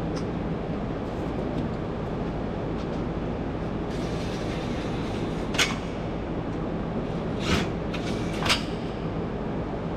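Metal clanks from tools and parts while a front chassis brace is bolted onto the car. Three sharp knocks in the second half stand out over a steady hum of shop noise.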